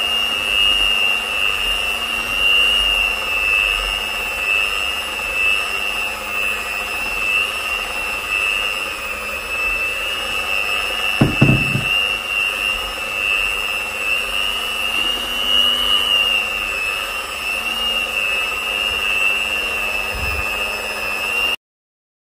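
Kenwood electric hand mixer running steadily on slow speed, kneading flour and water into chapati dough, with a steady high whine. A brief knock about halfway through, and the sound cuts off suddenly near the end.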